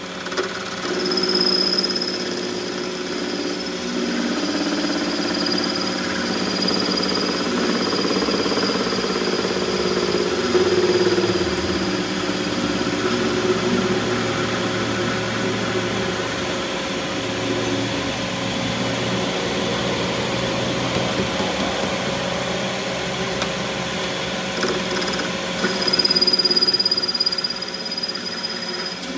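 A workshop machine running steadily with a mechanical hum and a high whine that fades out after the first several seconds and returns near the end.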